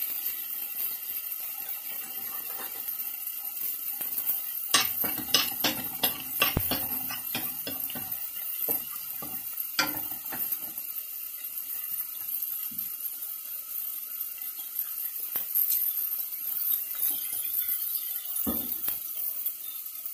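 Garlic and ginger paste sizzling in a little oil in a nonstick wok, with a steady hiss. A wooden spatula knocks and scrapes against the pan as it stirs, in a cluster of knocks about five to seven seconds in, again near ten seconds, and once near the end.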